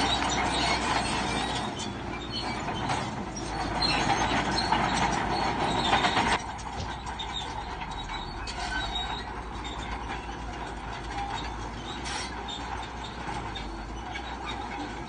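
Shantui crawler bulldozer working, its steel tracks clanking and squealing over the engine's running. The sound is loud for the first six seconds, then drops suddenly and carries on at a lower level.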